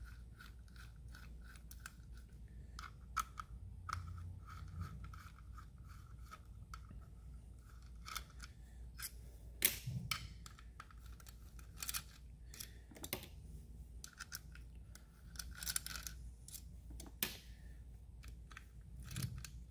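Faint irregular clicks, ticks and scrapes of a T-handle hex driver turning the crankcase screws out of a Zenoah 290 two-stroke engine, with small metal parts clinking and a few louder clicks around ten and thirteen seconds in.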